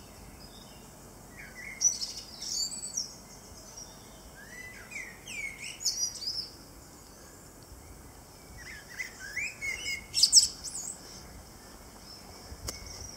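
Songbirds singing: short phrases of whistled notes that swoop up and down, in three spells with pauses between, loudest about ten seconds in.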